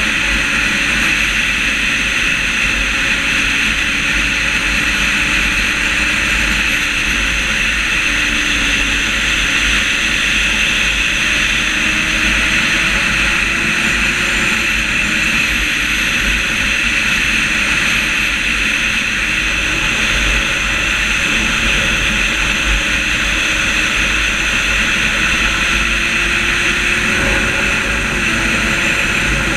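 Motorcycle riding at steady road speed: a constant rush of wind over the camera microphone, with the engine's drone underneath, its pitch drifting slowly up and down with speed.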